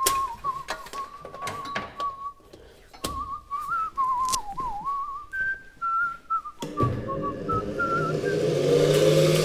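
A man whistling a wandering tune while working, with tools and parts clattering and knocking now and then. Near the end a louder hum with a rising pitch joins in.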